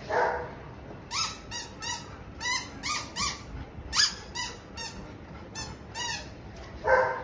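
A golden retriever giving a run of short, high-pitched whining yelps, about a dozen rising cries roughly every half second, with a lower cry at the start and another near the end.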